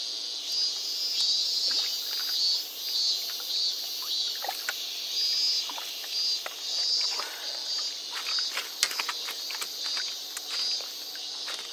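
Insects calling in a steady high-pitched chorus that pulses about two to three times a second, with a run of small sharp ticks in the second half.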